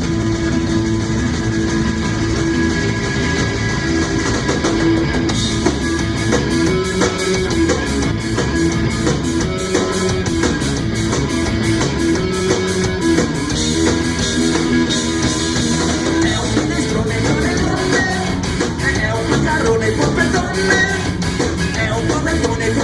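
Live rock trio of electric guitar, bass and drum kit playing loudly and steadily. About five seconds in, a fast, even run of high strokes joins in and fills out the top of the sound.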